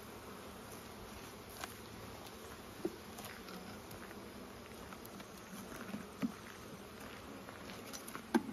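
Honeybees buzzing steadily around an opened hive box, with a few light knocks from handling the wooden hive parts; the loudest knocks come near the end.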